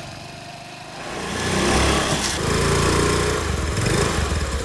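Motor scooter engine approaching, growing louder from about a second in and then running steadily.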